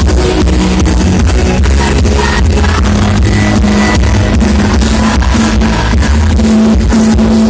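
Loud music with heavy bass and a steady, regular beat.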